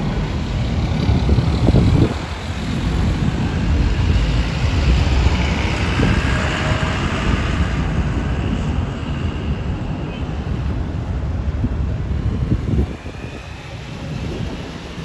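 Airbus A319-132 airliner flying overhead on its IAE V2500 jet engines: a steady rushing roar with a faint whine above it. A heavy low rumble under it drops off sharply about 13 seconds in.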